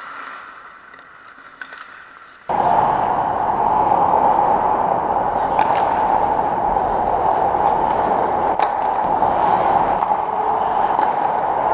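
Ice rink ambience with a few faint clicks, then about two and a half seconds in the sound jumps to a loud, steady rushing noise with a constant hum in it that runs on unchanged.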